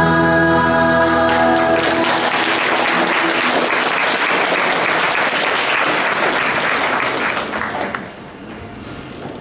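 Audience applauding as the last held chord of music fades away in the first two seconds; the clapping dies down about eight seconds in.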